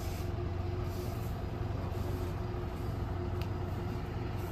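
A vehicle engine running steadily: a low, even hum with a faint steady higher tone over it.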